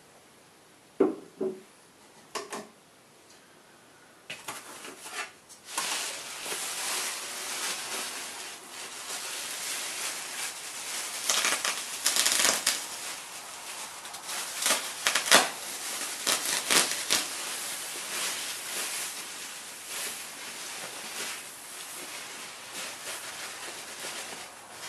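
A few light knocks near the start, then the continuous crackling rustle of a malt sack being slit open with a knife and handled over a bucket of malted grain, with many sharp crackles.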